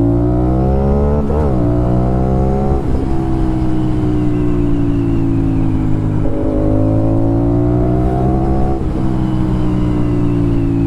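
Aprilia RS 457's parallel-twin engine through an SC Project full-system exhaust, pulling under load. Its note climbs and breaks twice in quick upshifts in the first three seconds, falls away as the throttle eases, then climbs again and breaks on another shift near the end.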